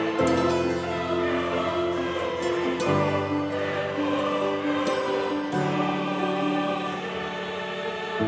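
Background music made of slow, held, layered notes that step to new pitches every second or so.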